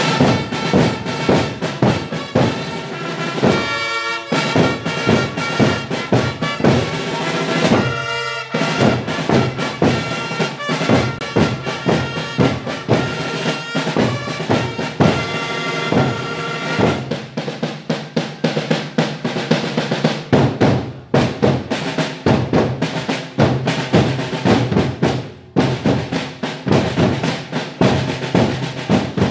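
Marching drums of a historical pageant group: snare drums rolling and beating over a bass drum in a fast, steady pattern. Held tones sound over the drums for about the first half, then the drums carry on alone.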